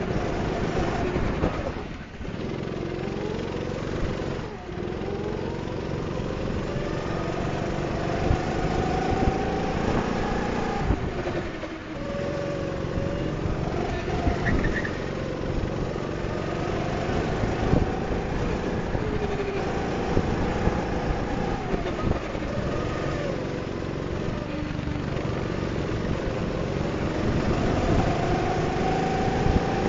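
Go-kart engine heard from on board the kart, its pitch rising and falling with the throttle through the corners, dipping briefly about 2, 4½ and 12 seconds in.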